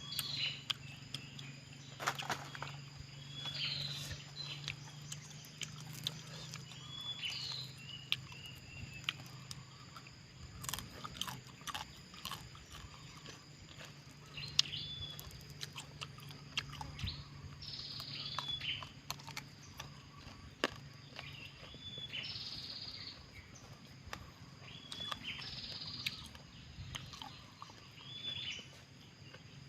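Close-up crunchy chewing and biting of small bird meat and bones, in irregular clicks. Over it, a bird gives a short chirping call again and again every few seconds, above a steady insect drone.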